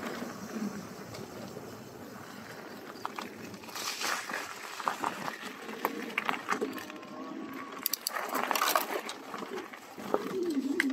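Electric bike rolling slowly over gravel and leaf litter: tyre crunch with scattered clicks and rattles from the bike, and a short wavering hum near the end.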